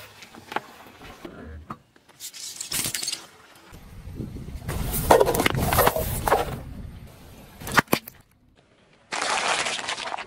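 Car tyre rolling over and crushing things on asphalt: plastic crackling and crunching and soft contents squishing out, in a series of separate bursts with a sharp crack about three-quarters of the way through.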